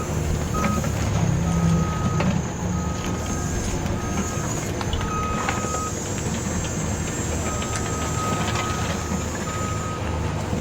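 Radio-controlled Yigong YG28F bulldozer working, its motors and gears running with a steady hum, a high whine and scattered clicks. An intermittent high beeping tone keeps starting and stopping in beeps of uneven length.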